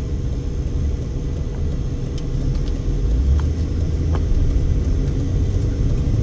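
Low rumble of a Mercedes-Benz car's engine and tyres, heard from inside the cabin while driving out of a left turn. It grows slightly louder about halfway through as the car picks up speed.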